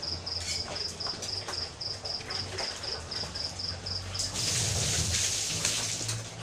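An insect chirping steadily, a high short chirp repeated about four times a second. About four seconds in, a louder hiss rises for two seconds and drowns the chirping, then fades.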